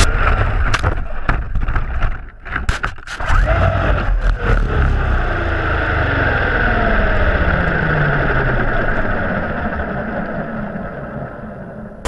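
Traxxas remote-control car tumbling over on sand: a quick series of knocks and scrapes in the first few seconds. It then lies overturned while its drivetrain keeps whining, the pitch slowly falling as it winds down and fades.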